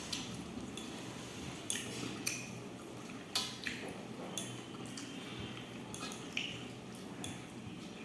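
Close-up eating sounds: wet chewing and mouth smacks, with a few sharp clicks scattered through, over a steady low hum.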